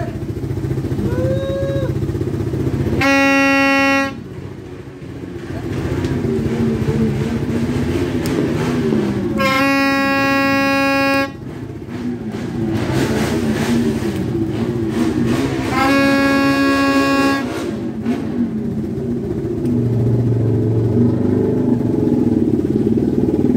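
A horn sounding three long, steady blasts of about a second to a second and a half each, spaced several seconds apart, over a continuous low hum.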